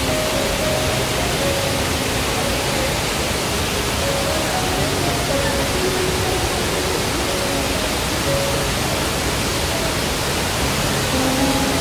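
Steady rush of a wide curtain-type waterfall pouring over a rock ledge into a pool, with a soft melody of background music over it.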